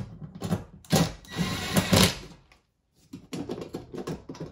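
Cordless Ryobi driver tightening toggle bolts to pull a microwave mounting bracket tight against drywall. It runs in short irregular bursts, stops briefly about two and a half seconds in, then runs again as a quick train of clicks on the other bolt.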